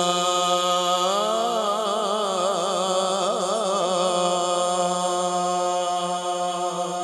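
A male qari reciting the Quran in melodic tajwid style, holding one long note on a single breath. The note is steady for about a second, then turns into rapid, wavering melismatic ornaments.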